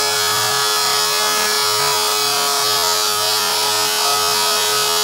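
Shapeoko 3 CNC router's spindle running steadily with a high whine as its engraving bit carves lettering into a wooden board.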